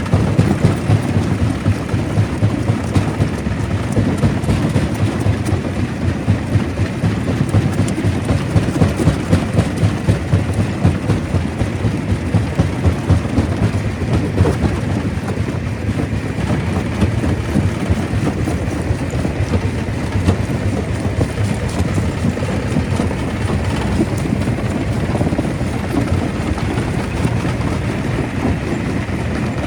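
Stone crusher running: a loud, continuous heavy rumble and clatter of rock being crushed, pulsing about three times a second.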